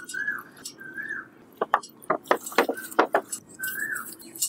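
A bird gives a short arching whistled call four times. Midway, a plastic drinks bottle fitted as a sprinkler crackles as it is squeezed, with a hiss of water spraying onto potting soil.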